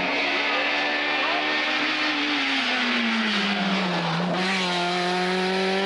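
Suzuki Swift GTI rally car's four-cylinder engine under load as the car approaches. Its revs sag steadily as it comes off the throttle. About four seconds in, as the car passes close by, the revs jump up sharply and the engine pulls hard again.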